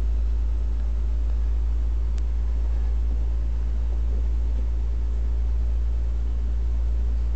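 A steady low hum with a faint hiss over it, unchanging throughout.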